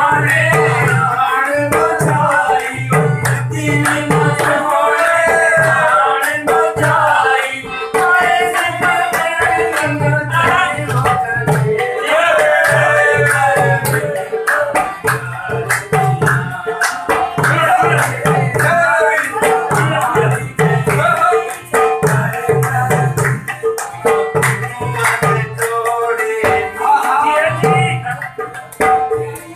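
Live folk music for dancing: a singer's voice over a harmonium's steady drone and a drum beating a fast, regular rhythm.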